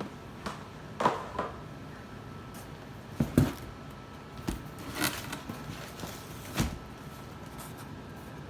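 Packaged groceries and household items being handled and set down: a few irregular knocks and short rustles of boxes, bags and packaging.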